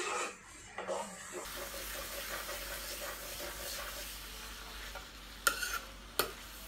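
Chicken pieces with onion and green chilli sizzling in an electric skillet while a metal ladle stirs them. The sizzle sets in about a second and a half in, and the ladle knocks sharply against the metal pan twice near the end.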